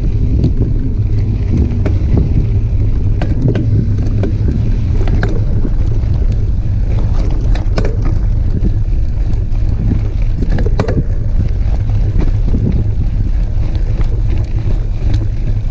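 Heavy wind rumble on the microphone of a mountain bike descending a gravel dirt trail at speed, with the crunch of tyres on loose stones and scattered sharp clicks and rattles from the bike and gravel.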